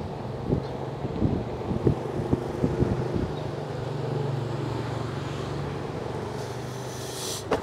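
Wind noise on the microphone over a steady low hum, with scattered short knocks in the first few seconds and a sharp click near the end.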